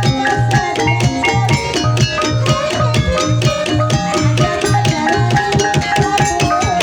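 Ebeg accompaniment music: fast, steady hand-drum strokes under many pitched percussion notes and a long held melody line.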